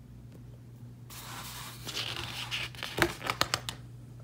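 A glossy picture-book page being turned by hand: paper rustling starts about a second in, with a quick run of sharp crackles around three seconds in.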